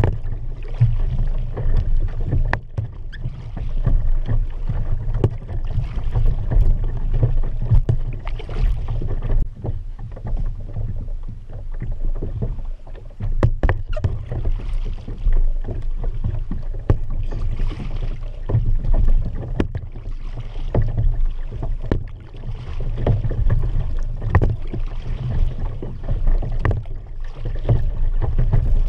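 Kayak paddling: the paddle blades dip and splash in a steady rhythm about every two seconds over a continuous low rumble, with a few sharp knocks.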